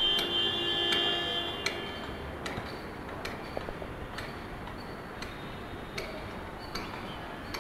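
Even, clock-like ticking, about one tick every three-quarters of a second, with held high tones that fade out in the first two seconds.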